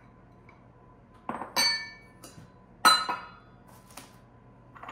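A small ceramic bowl and a spatula knocking against the rim of a glass mixing bowl as dried cherries are scraped out into stiff cookie dough: a few sharp clinks, two of them louder and ringing briefly.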